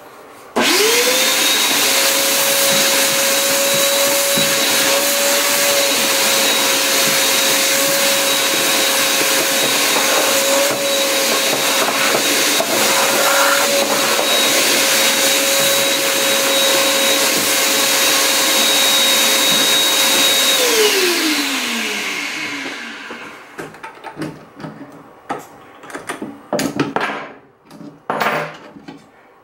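Shop vacuum switched on, running steadily with a high whine as its hose sucks aluminum chips off the mill bed. It is switched off about 20 seconds in, and its pitch falls as it spins down. A few scattered knocks and clicks follow.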